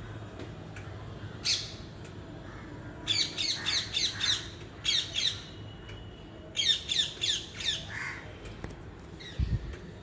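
Parrot squawking: a single harsh call, then runs of quick, loud squawks in short bursts.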